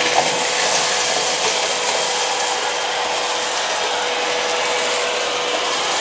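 Stainless-steel drum wet-and-dry vacuum cleaner running with a steady rushing whine, sucking up dry paper scraps and grit from a tiled floor. Small bits clatter through the nozzle and hose.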